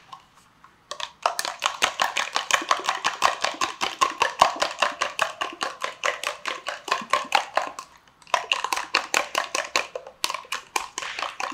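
A metal fork beating raw eggs in a plastic cup: a rapid, rhythmic clicking of about six or seven strokes a second. It starts about a second in and breaks off twice for a moment near the end.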